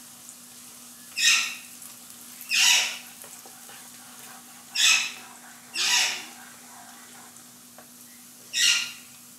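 Sliced onions sizzling in hot oil in a frying pan, stirred with a wooden spatula: a steady faint sizzle broken five times by short, loud scraping swishes as the spatula sweeps through the pan. A steady low hum runs underneath.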